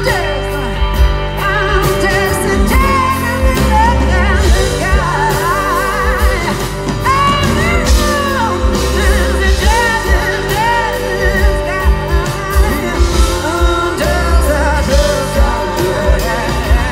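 Live pop band playing, with a singer's voice gliding over a steady bass line and drum beat.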